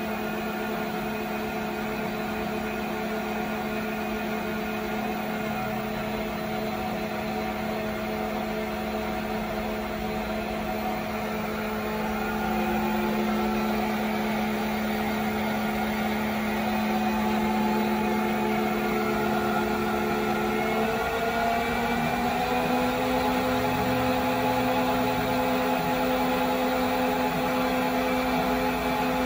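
Sharp 1340VS variable-speed metal lathe running without a workpiece, its spindle turning at about 580 rpm: a steady hum from the motor and gearing with several held tones. It grows a little louder near the middle, and the tones step up slightly in pitch about two-thirds of the way through.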